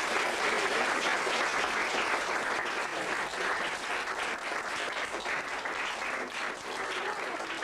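Audience applauding, a dense even clapping that slowly thins and quietens toward the end.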